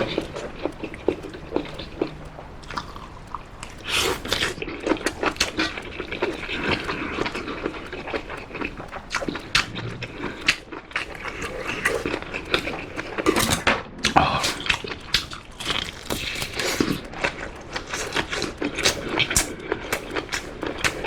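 Close-miked eating of spicy ramen and king black tiger shrimp: wet slurping of noodles and broth, with chewing, lip smacks and many small clicks.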